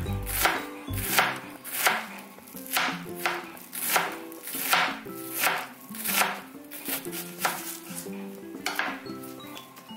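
Chef's knife mincing onion on a cutting board: a steady run of regular chopping strokes, a little over one a second, growing fainter near the end.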